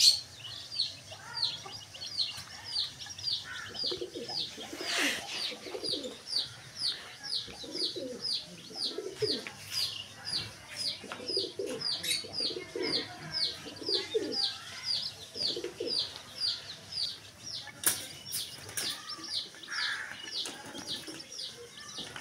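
Baby chicken chicks peeping: a steady run of short, high, falling peeps, two or three a second. Pigeons coo low underneath, off and on, and there are a couple of brief noisy bursts, one about five seconds in and one later.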